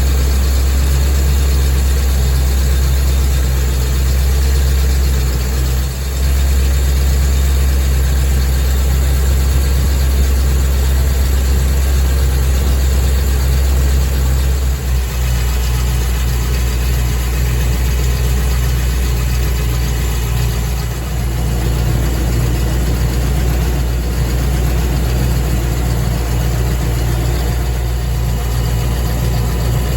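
Land Rover Discovery 2 engine running steadily with a low, even hum, briefly dipping a few times.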